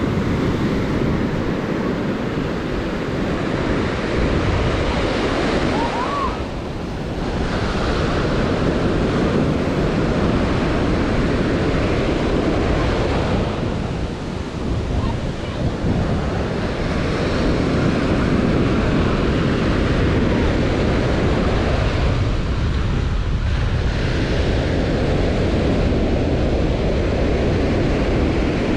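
Ocean surf breaking and washing up a sandy beach, a steady rushing wash that eases off briefly a few times, with wind on the microphone.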